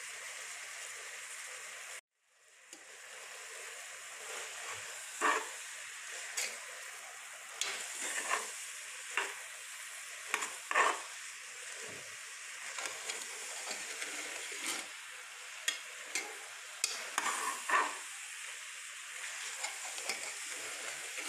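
Spiced chickpeas frying in oil in a pan, the masala cooked down until the oil separates. A steady sizzle runs under irregular scraping strokes of a spatula stirring against the pan. The sound cuts out completely about two seconds in and fades back up.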